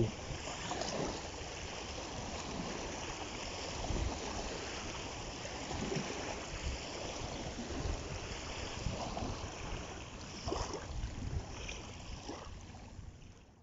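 Small waves washing onto a sandy shore: a steady rushing noise with scattered faint low knocks.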